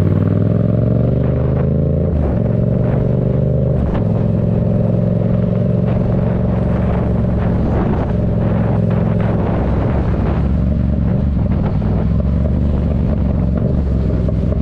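2024 Yamaha MT-07's 689 cc parallel-twin engine through a Black Widow aftermarket exhaust, accelerating with upshifts about two and four seconds in, then running at a steady cruise.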